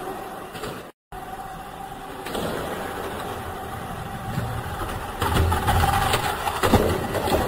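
Tamiya Mini 4WD Sunny Shuttle (AR chassis) running on a plastic lane track: a steady hum from its small electric motor, growing loud with rattling clatter as the car passes close about five to seven seconds in.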